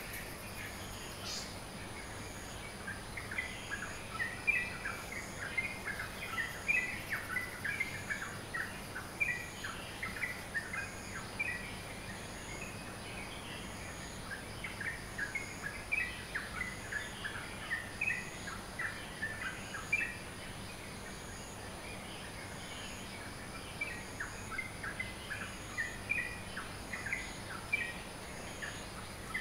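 Dawn chorus of tropical birds: many short, high chirps and twitters in busy clusters, with brief lulls. Under them runs a faint steady high whine, with a faint high pulse repeating about every second and a half.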